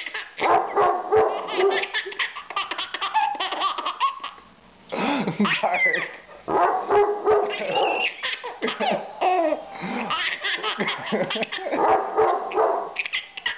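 A large dog barking repeatedly while a baby laughs, giggles and belly-laughs at it, with a short lull about four seconds in.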